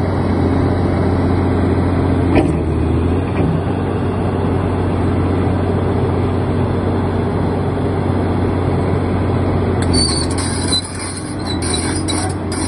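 Åkerman 45-tonne tracked excavator's diesel engine idling steadily with a low, even hum, a brief click about two seconds in and a higher hiss joining near the end.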